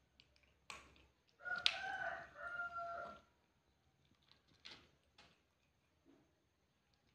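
A cat eating food from a bowl, chewing with scattered soft clicks. About a second and a half in, a long animal call with a steady pitch, in two parts, sounds for nearly two seconds and is the loudest sound.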